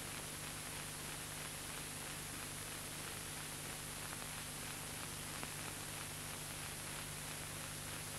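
Steady hiss and low hum of an old film soundtrack, with no other sound.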